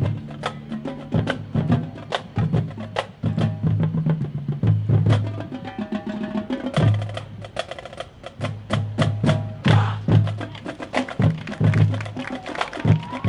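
High school marching band playing its competition field show, in a percussion-heavy passage: rapid sharp clicks and snare hits over repeated low pitched notes.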